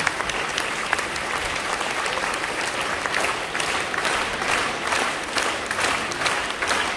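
Theatre audience applauding at the end of an opera performance, the clapping growing fuller and more pulsing about halfway through.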